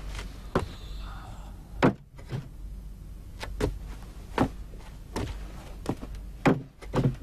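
Slow footsteps on a hard floor, a sharp knock about every three-quarters of a second, with a round wooden drum stool set down with a knock near the end, the loudest sound here.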